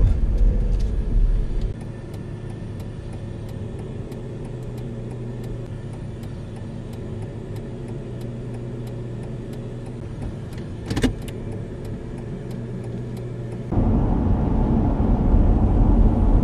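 Car road noise heard inside the cabin through a dashcam: a loud low rumble that cuts to a quieter steady hum with faint regular ticks, with one short sharp sound about eleven seconds in. The loud rumble returns near the end.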